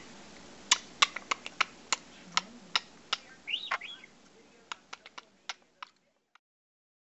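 Budgerigar close to the microphone: a dozen or so sharp clicks at an uneven pace, with two quick rising-and-falling chirps about three and a half seconds in.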